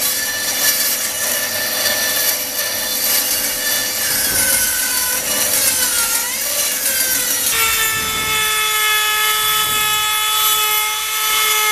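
Power tool shaping a piece of wood: a steady motor whine over the cutting noise, its pitch sliding between about four and seven seconds in and dropping to a lower, steadier note about seven and a half seconds in as the load changes.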